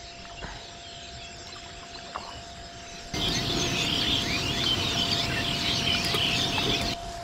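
Quiet open-water ambience, then from about three seconds in a dense chatter of many birds calling at once, which breaks off sharply just before the end.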